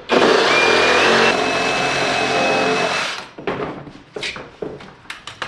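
A power tool running for about three seconds, cutting into the plastic body panel, with a steady high whine that steps up slightly about a second in. It stops abruptly, followed by several short knocks and clatters of plastic being handled.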